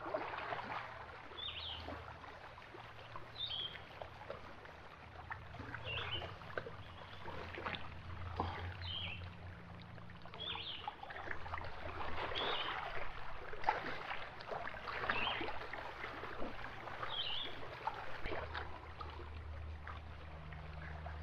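Small waves lapping against a rocky shoreline, with a low rumble underneath. A bird gives short, high chirps every second or two.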